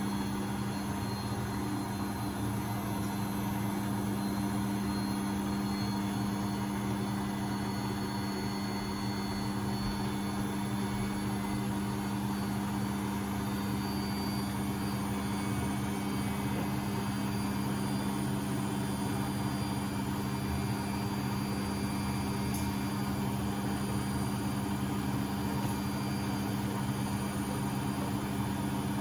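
Beko WMB71642W washing machine in its final spin at 1000 rpm: the motor and drum turning at full speed with a steady hum.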